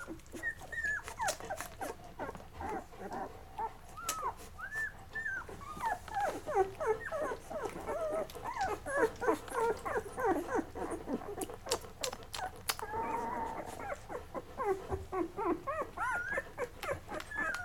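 Chocolate Labrador puppies, about eleven days old, squeaking and whimpering while nursing: many short high squeaks that rise and fall in pitch, one slightly longer, steadier cry near the end, and scattered faint clicks.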